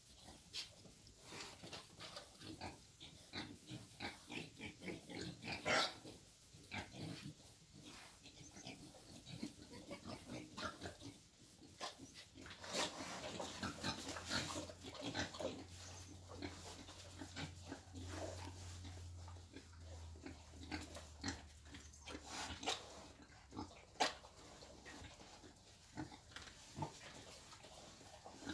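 Wild boars making short, irregular grunts and snuffles as they root and move about, the loudest about six seconds in and again near the end.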